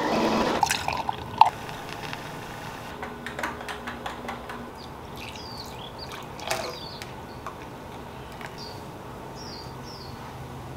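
An espresso machine's pump hum cuts off about half a second in. Sharp clinks of glass and ceramic follow, and espresso is poured from a small glass pitcher into a ceramic mug.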